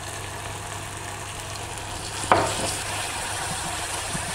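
Onion and garlic sizzling in oil in a nonstick saucepan as tomato paste is stirred in with a wooden spatula. There is one short, sharp sound about two seconds in, followed by the light scrape and clack of the spatula stirring.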